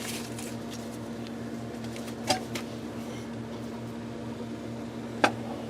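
Steady low mechanical hum, with a light click about two seconds in and another about five seconds in.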